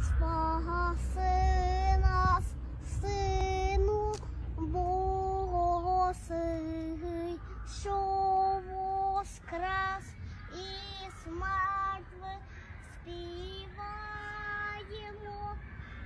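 A small child singing in a high voice, held notes in short phrases with brief breaks between them.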